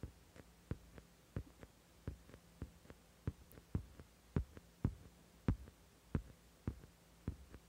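Faint soft taps, about two or three a second and unevenly spaced, over a low steady hum.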